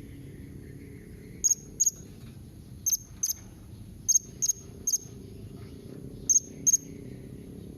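Blue-crowned hanging parrot (serindit) calling: short, sharp, high-pitched chirps, mostly in quick pairs, repeated every second or so, with one run of three, over a faint low rumble.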